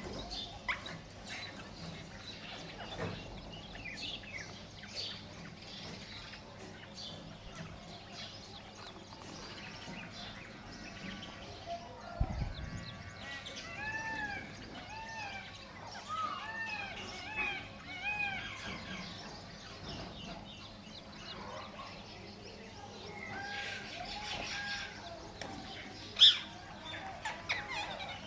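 Indian ringneck parrot calling: runs of short notes that rise and fall in pitch, many in quick succession around the middle, and one loud sharp call near the end.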